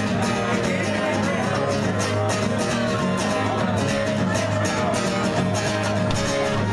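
Acoustic guitar strummed live in a steady, even rhythm, with chords ringing on between the strokes.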